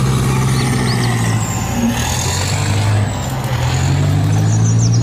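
Heavy diesel engine of an eight-wheeled armored military vehicle running as it drives slowly past: a deep, steady drone with a faint high whine above it.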